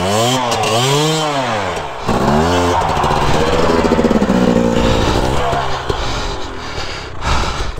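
Dirt bike engine revved hard in quick rising-and-falling surges, then held high for a couple of seconds before dropping away near the end, as the bike is stuck in deep mud and fought free.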